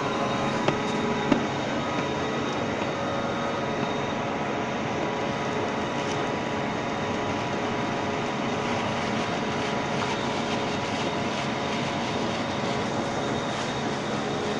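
Rice husk baling and bagging machine running: a steady mechanical hum with several constant whining tones, and two sharp clicks about a second in.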